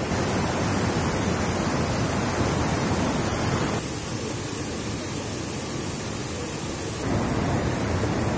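Rushing muddy floodwater tearing down a landslide channel, a steady dense roar. It drops somewhat about four seconds in and comes back louder about seven seconds in.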